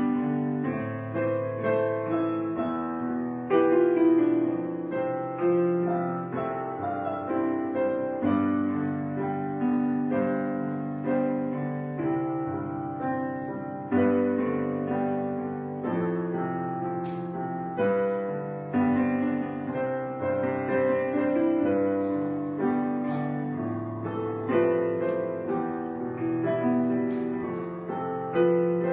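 Background piano music: a steady succession of struck notes, each fading before the next.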